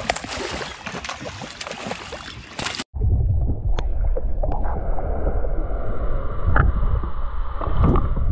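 Water splashing and churning at the surface with wind on the microphone. About three seconds in it cuts off suddenly to the muffled low rumble of water heard through an underwater camera, with a few faint clicks.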